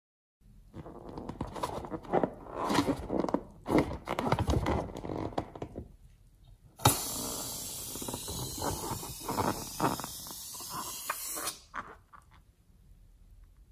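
Rubber balloon filled with slime being handled, with irregular scraping and squeaking, then a sharp snip of scissors cutting its tip about seven seconds in. A steady hiss with wet squelching follows for about four seconds as the slime-filled balloon is squeezed, then it goes quieter.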